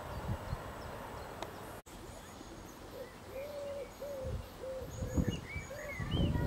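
Steady rumble of a distant passenger train running on the line, ending abruptly about two seconds in. After it comes a run of short, evenly pitched hooting calls, about two a second, with a few low thumps among them.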